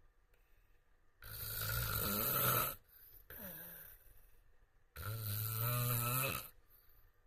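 A man snoring: two long snores about four seconds apart, each lasting about a second and a half, with a softer breath in between.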